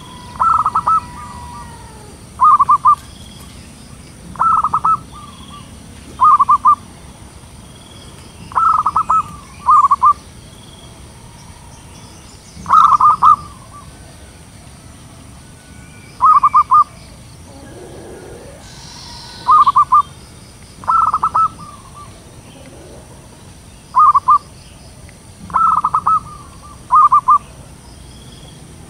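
Zebra dove cooing: short staccato phrases of a few quick notes, repeated every one to two seconds.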